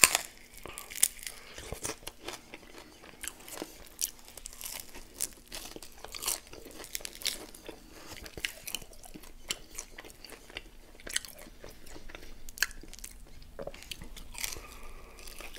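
Close-up eating sounds of a person biting into and chewing chicken wings glazed in peanut butter and jam sauce: irregular crisp crunches and bites with chewing in between.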